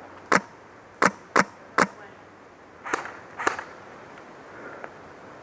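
Airsoft gunfire in single shots: four sharp cracks within about the first two seconds, then two fainter ones around three seconds in.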